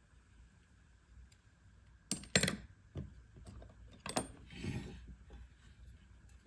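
Small steel parts of a Galil rear sight assembly clicking and clinking as they are handled: a quick pair of sharp clicks about two seconds in, the loudest, then single clicks near three and a little after four seconds, with a brief rustle after the last.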